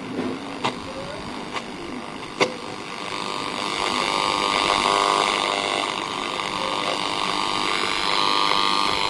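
Panasonic 543 radio cassette recorder being tuned across the shortwave band. A few clicks come in the first couple of seconds, then the speaker gives a steady buzzing hiss of static and interference between stations.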